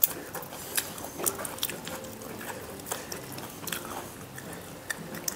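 Cooked shell-on shrimp being peeled by hand: shells cracking and snapping in scattered sharp clicks, mixed with chewing.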